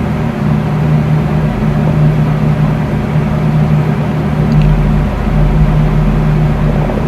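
Empty stomach growling hungrily: a long, low rumbling growl that drops out briefly a few times. Behind it an electric fan runs with a steady rushing noise.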